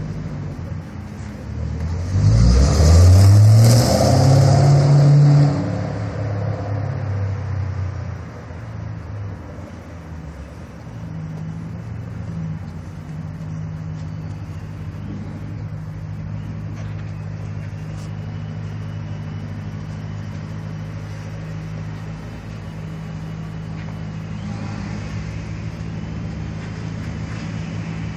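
Ford Mustang Shelby GT500's supercharged V8 revved once about two seconds in, its pitch rising and held for a few seconds before dropping back. It then settles into a steady idle with a deep exhaust rumble.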